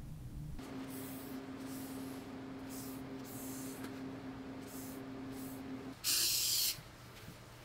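A spray bottle of cleaner spritzing in several short hisses, then one longer, louder spray about six seconds in. A steady low hum runs underneath until then.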